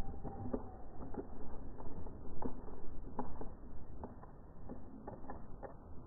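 Irregular sharp clicks and taps from birds landing on the perches and pecking seed at a plastic tube feeder, over a steady low rumble.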